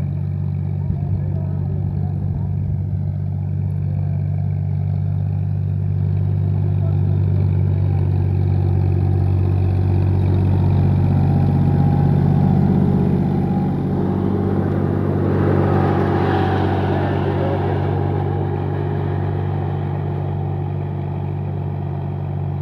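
John Deere 5204 tractor's diesel engine running steadily under load as it pulls a 22-disc harrow through the soil. It grows louder toward the middle, loudest about 12 to 17 seconds in, then eases off.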